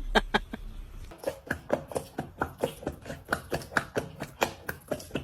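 A rapid, even series of light taps or knocks, about four or five a second, starting about a second in after a couple of sharper clicks.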